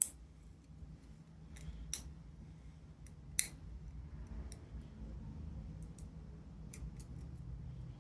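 Sharp clicks and snips from small parts and hand tools being handled on a workbench: a few louder clicks in the first four seconds, the loudest about three and a half seconds in, then lighter ticks, over a steady low hum.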